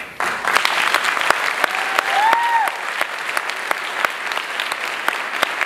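Audience clapping, starting sharply just after the announcer falls silent and carrying on steadily as dense, overlapping handclaps. About two seconds in, one brief high-pitched tone rises and falls above the clapping.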